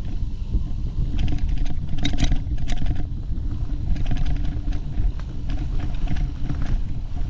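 Off-road motorcycle engine running steadily while riding along a rough single-track trail, with wind rumble on the microphone and scattered knocks and rattles from the bike over rocks and roots.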